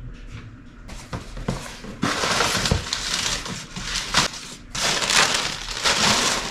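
Packaging being crumpled and handled: noisy rustling in bursts that grows loud about two seconds in, with a few sharp clicks.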